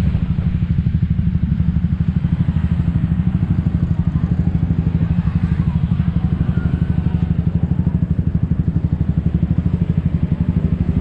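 A small engine running steadily close by, with a fast, even low throb.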